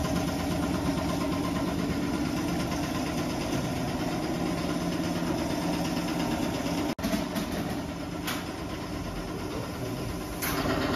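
Tea-grading and stalk-separating machinery in a black tea factory running steadily, a constant mechanical drone as the finished tea is sorted into grades. It cuts out for an instant about seven seconds in.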